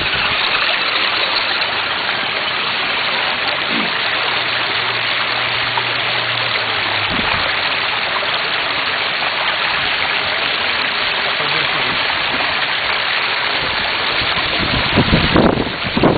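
Steady rushing of shallow river water running over rocks.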